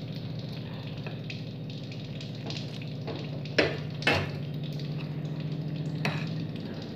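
Metal spoon stirring rice flour and hot water into dough in a glass bowl: a soft scraping, crumbling texture with sharp clinks of the spoon on the glass, twice just past halfway and once near the end. A steady low hum runs underneath.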